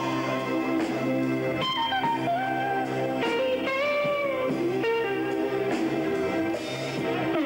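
Electric guitar played live, a lead line of sustained notes with several bends up and back down, over a steady low accompaniment.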